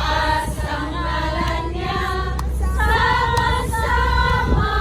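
A group of voices singing a worship song together in unison, holding long notes, over a steady low rumble.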